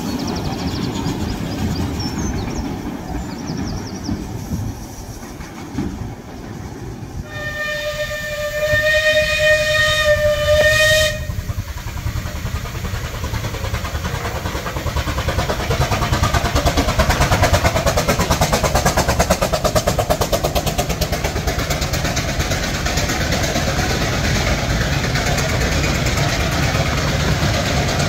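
A 15-inch-gauge miniature railway train running, with wheels clattering over the rail joints. About seven seconds in, a locomotive sounds one steady warning note lasting about four seconds. From about twelve seconds the train's running noise swells as the coaches roll past, then holds steady.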